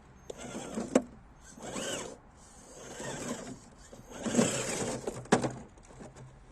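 Electric motor and gearbox of an RGT EX86110 1/10-scale RC crawler whining in several short bursts, pitch rising and falling as the throttle is worked, with a sharp knock about a second in and another a little past five seconds.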